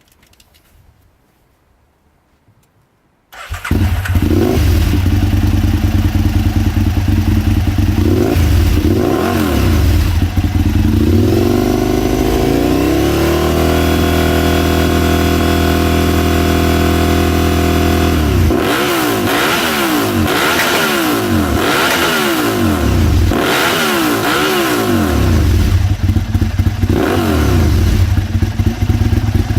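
Aprilia Tuono's V-twin engine with an Arrow aftermarket exhaust starting suddenly about three seconds in and idling, then revved: a couple of short blips, a rise to high revs held for about five seconds, then a run of quick throttle blips, dropping back to idle near the end.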